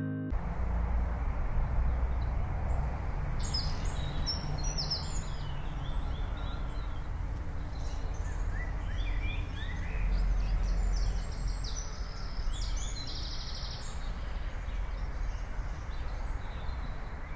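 Open-air ambience: a steady low rumble of wind on the microphone, with small birds chirping in two spells, a few seconds in and again around ten to twelve seconds.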